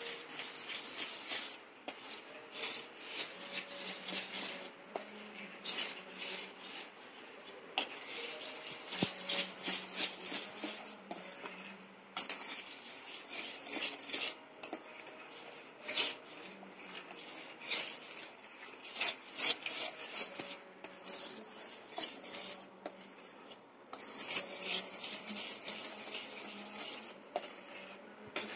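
Metal spoon stirring milk in a steel bowl, with irregular scrapes and clinks against the bowl's bottom and sides throughout.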